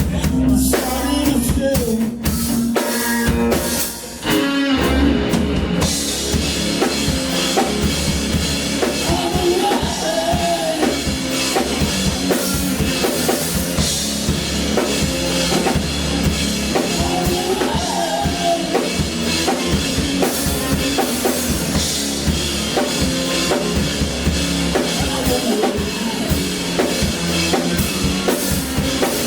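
A live band playing with a drum kit, bass drum and snare to the fore. The music thins and briefly drops about four seconds in, then the full band comes back in with cymbals and carries on steadily.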